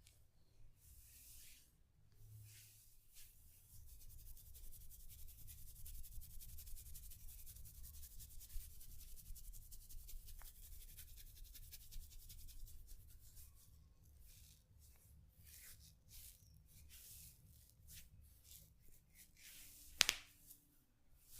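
Hair and scalp being rubbed and scratched during a head massage, close to the microphone. A fast, dense scratching runs for several seconds, then gives way to slower separate strokes, with one sharp click near the end.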